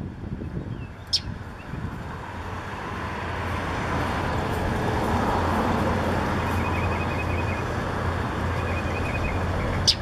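Steady road-traffic rumble that swells over the first few seconds and then holds, with two short high squeaks from juvenile northern mockingbirds, one about a second in and one near the end.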